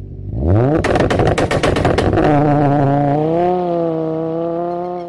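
Intro sound effect of a car engine revving up with a rising note, then a rapid string of about ten sharp bangs, like exhaust pops or gunfire, then a steady held engine note that drops away at the end.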